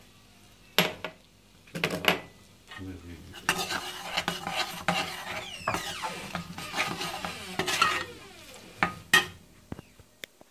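Metal spoon stirring and scraping spices frying in oil in a stainless-steel karahi, with sharp clinks of the spoon against the pan. A few clinks come early, then a longer stretch of busy stirring and scraping, then two more clinks near the end.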